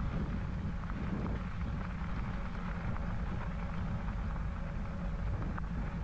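Steady wind rumble on the microphone over the hiss and faint crackle of bicycle tyres rolling on a wet crushed-limestone trail.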